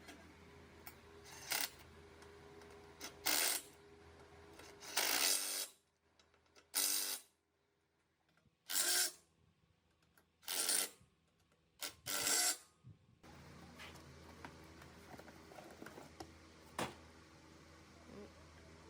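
Short bursts of spray hiss, about seven of them roughly two seconds apart. A low hum runs under them, and a single sharp click comes near the end.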